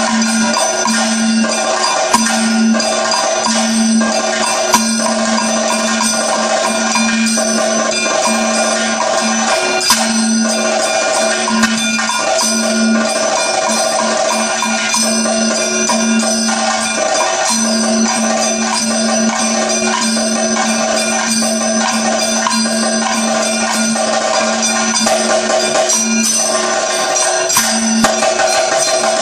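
Kathakali time-keeping percussion: a chengila (bell-metal gong) and ilathalam (hand cymbals) struck in a steady rhythm, their metallic ringing overlapping and renewed with each stroke, accompanying a dance passage.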